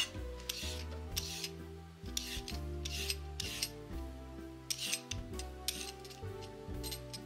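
Vegetable peeler scraping down a carrot in short rasping strokes, about two a second, over soft background music.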